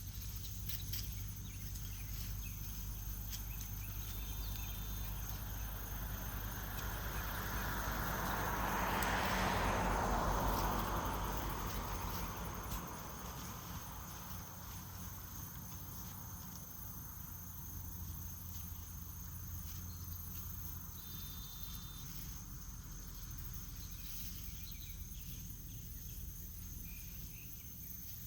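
Outdoor garden ambience: steady high-pitched insect drone, with a broad rushing noise that swells and fades around ten seconds in, and two brief high beeps, one early and one late.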